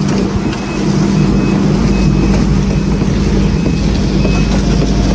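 An engine running steadily at a constant speed, with short high beeps now and then.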